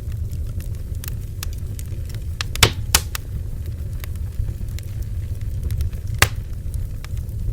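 Bonfire burning with a steady low rumble of flame, scattered small crackles and three louder wood pops, two close together about two and a half seconds in and one about six seconds in.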